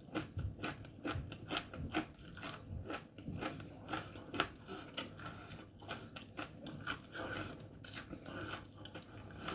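A person chewing a mouthful of dry corn chips, with quick, irregular crunches.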